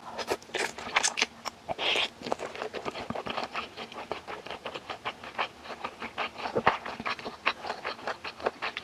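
Close-miked eating of japchae: sweet potato glass noodles slurped into the mouth, with a hissing slurp about two seconds in, then wet chewing with quick sticky mouth clicks, several a second.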